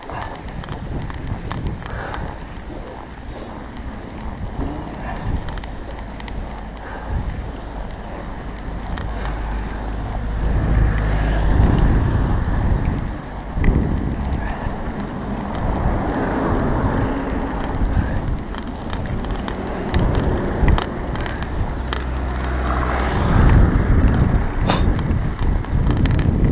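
Wind buffeting a bike-mounted action-camera microphone over the rolling rumble of bicycle tyres through fresh snow, swelling and easing as the rider goes.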